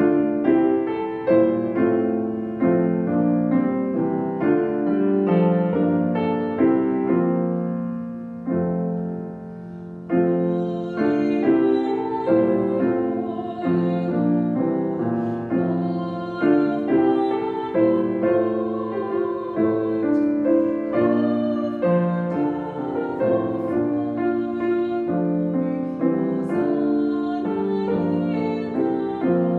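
Slow piano music, a sequence of sustained chords and melody notes, softening briefly about nine seconds in before going on.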